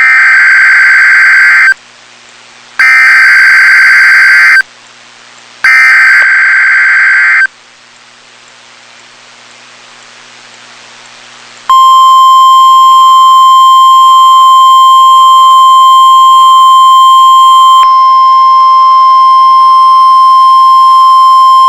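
Emergency Alert System tones on NOAA Weather Radio: three loud bursts of warbling SAME header data, each just under two seconds and about a second apart, then a few seconds of quiet, then the steady warning-alarm tone (NOAA's 1050 Hz tone) held for about ten seconds. Together they signal the start of a broadcast weather alert, here a tornado watch.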